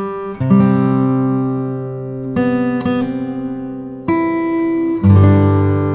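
Background music on acoustic guitar: strummed chords, each left to ring and fade, a new chord about every second and a half.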